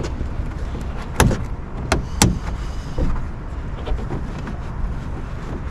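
Plastic push-clips snapping and clicking as they are pried out of a car trunk lid's fabric liner: three sharp clicks a little over a second in, with a few fainter clicks after, over a steady low rumble.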